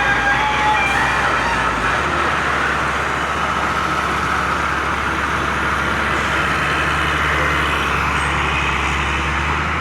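Heavy diesel engine of a sand-laden truck pulling away and running steadily under load. The low engine note shifts about two seconds in.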